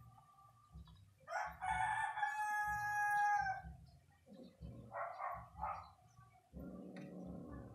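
A rooster crowing once, a long held final note lasting about two seconds, followed by a few shorter, fainter sounds.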